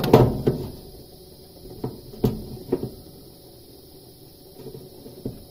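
Knocks and bumps from handling things inside a wooden cupboard: one sharp knock at the start, then three lighter ones about two to three seconds in.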